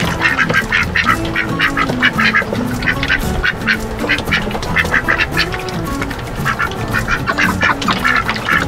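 Domestic ducks quacking in a rapid, continuous chatter, several calls a second, as they crowd their water tub for bread.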